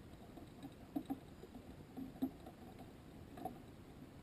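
A few faint, irregular knocks and ticks over a low hiss, picked up through a camera mounted on the outer skin of a rocket coasting above the atmosphere.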